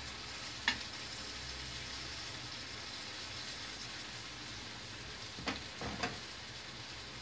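Chopped peppers and tomatoes sizzling steadily as they fry in oil in a steel pan. A sharp click of a utensil on the pan comes about a second in, and two more come near the end.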